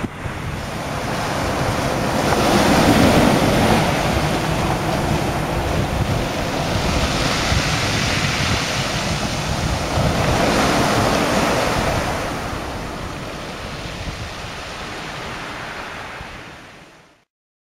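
Sea waves breaking and washing over a shingle beach, rising in surges every few seconds, with wind noise on the microphone. The sound fades out near the end.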